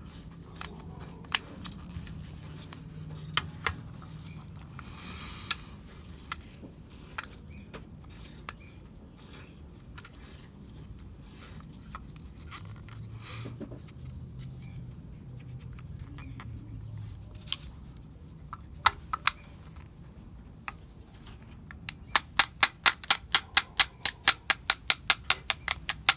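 Small metal clicks and ticks of a Mazda RX-7 FD door handle's parts being handled as its linkage rod is pushed back into place, with a quick run of evenly spaced clicks, about five a second, near the end.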